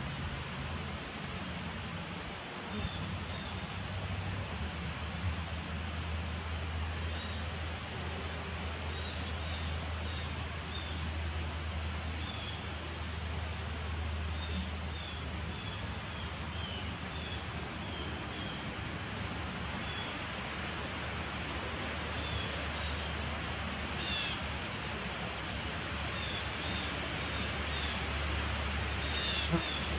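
Honeybees buzzing at the entrance of a nuc hive: a steady low hum under a constant high insect trill, with scattered short bird chirps and two brief falling bird calls, one about midway through and one near the end.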